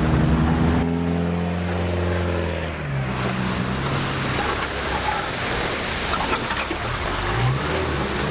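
Off-road vehicle engine running steadily and easing off about three seconds in, followed by a loud, steady rushing noise with the engine faint beneath it.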